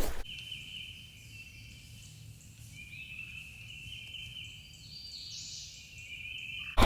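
Quiet woodland background with a steady high-pitched trilling or ringing band over a faint low rumble, cutting in and out abruptly.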